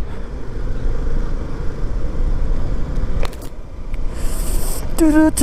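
Motorcycle riding along with a steady low rumble and wind noise on the microphone. Near the end a short pitched sound with overtones cuts in.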